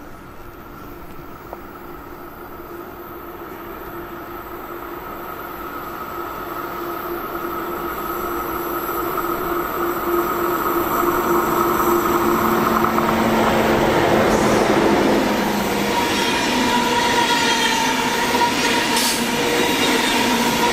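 ICE high-speed electric train approaching on a curve and passing close by. The sound grows steadily louder over the first twelve seconds or so, with a steady whine over the rolling noise of the wheels.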